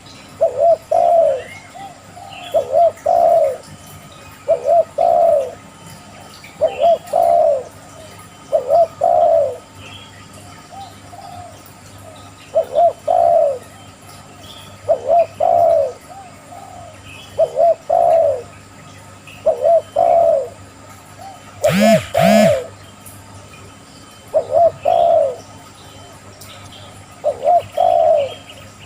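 A dove cooing, a short two-part coo repeated about every two seconds. About two-thirds of the way through, two louder, harsher calls stand out.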